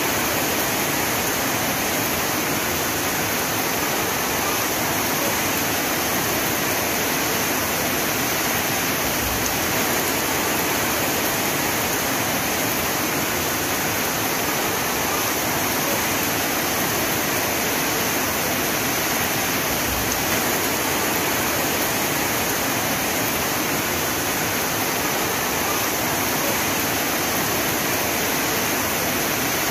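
Heavy rain falling: a steady, even hiss with no breaks or separate drops standing out.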